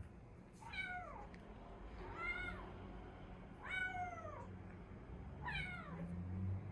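Kitten meowing four times, about a second and a half apart. Each meow is a high-pitched call that slides downward in pitch.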